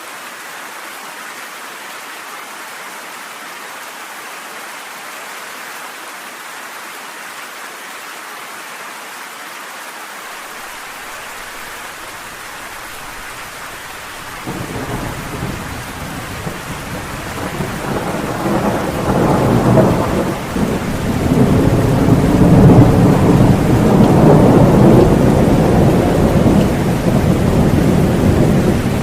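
Steady rain hiss. About halfway through a rolling thunder rumble sets in and builds, becoming the loudest sound and carrying on to the end.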